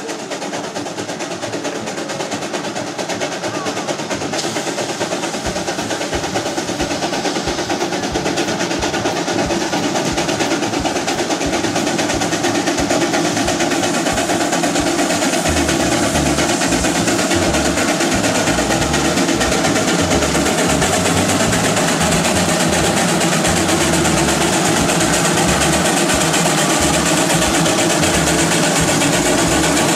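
Steam traction engine working, its exhaust chuffing in a rapid, even rhythm, growing louder as it draws near.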